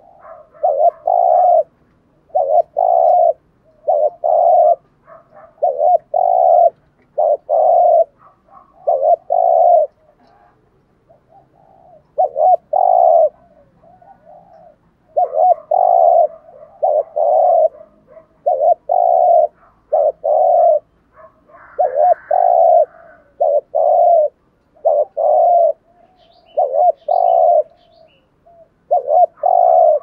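Spotted dove cooing over and over in short groups of two or three low notes, the insistent 'gù thúc' coo that Vietnamese dove keepers prize in a decoy bird. The cooing pauses for about two seconds around a third of the way in, then resumes.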